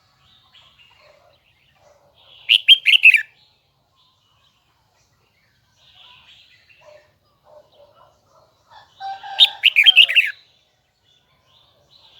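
A red-whiskered bulbul singing: two short, loud phrases of quick notes that slide downward, the first about two and a half seconds in and the second near the end, with soft chattering between them.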